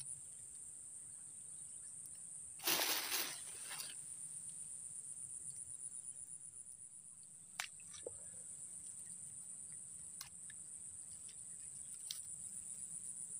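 Steady high-pitched insect drone from the swamp, pulsing slightly. About three seconds in there is a noisy rustling burst lasting about a second, and a few faint clicks follow later.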